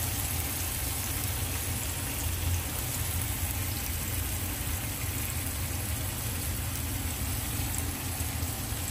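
Paneer tikka and soya chaap sizzling on an oiled grill pan: a steady, even hiss with a low hum underneath.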